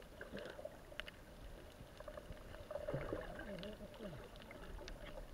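Muffled underwater sound picked up by a submerged action camera: a low rumble with scattered small clicks and crackles, and faint muffled voices coming through about three seconds in.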